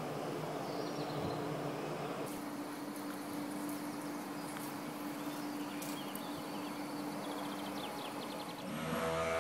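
Steady low hum of a building-site crane's motor lifting a timber-frame wall panel, over outdoor background noise with a few faint light clicks. A louder hum made of several steady tones comes in near the end.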